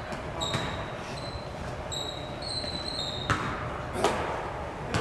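Basketball game in a gym: sneakers squeaking on the hardwood floor several times, then a basketball bouncing twice on the court near the end.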